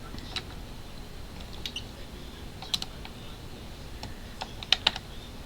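Scattered small, sharp clicks of a screwdriver working the hinge screws of a laptop, tightening screws that had worked loose. The two loudest clicks come close together near the end.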